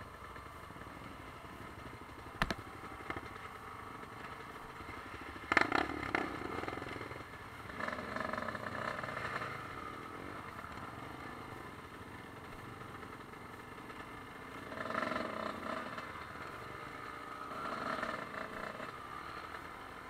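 Dirt bike engines on a forest trail: a steady low running sound with the revs rising in several swells, and a single sharp knock about two and a half seconds in.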